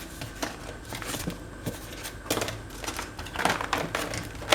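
Packaging being handled by hand: a few light clicks and taps with short bursts of rustling as the box and its contents are moved.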